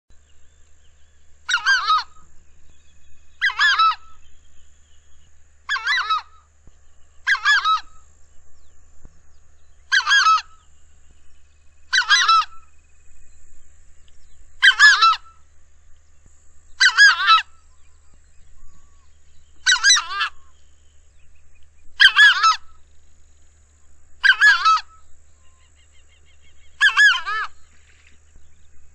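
Southern screamer (chajá) calling: about a dozen short, loud calls, each about half a second long, repeated evenly every two seconds or so.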